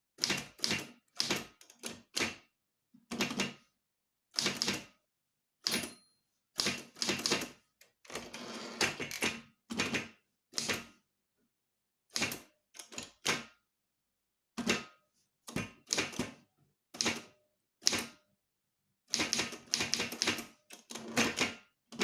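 Typewriter keys struck in short irregular runs, with brief pauses between groups of keystrokes.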